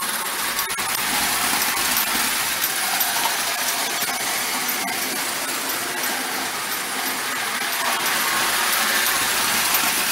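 Marx No. 994 clockwork wind-up toy locomotive running on its spring motor around tinplate O-27 track, pulling four cars: a steady metallic whirring from the gears and wheels on the rails.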